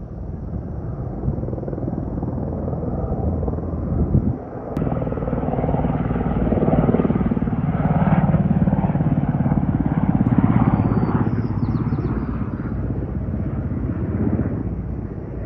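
Firefighting helicopter flying, a steady rotor chop and engine rumble that grows louder about six seconds in and eases off near the end.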